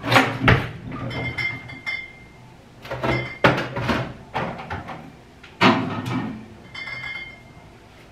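A wine bottle being put back in the fridge: the refrigerator door opening and closing, with several knocks and clinks of glass.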